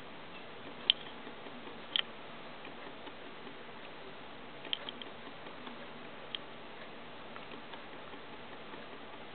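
A few sharp, isolated clicks over a steady low hiss. The two loudest come about one and two seconds in, then a quick pair near the middle and a last one a little later.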